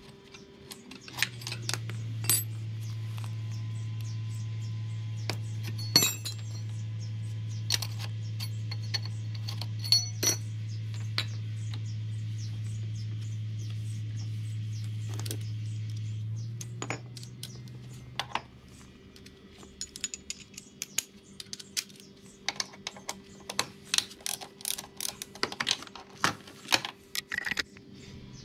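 Metal tools and parts clinking and tapping again and again, as in hands-on work on a scooter. A steady low hum runs under the first half and stops about 16 seconds in.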